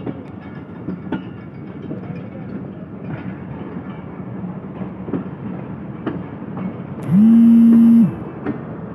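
Passenger train coaches rolling past as the train pulls out of a station, wheels knocking over the rail joints about once a second over a steady rumble. Near the end a loud horn blows once for about a second.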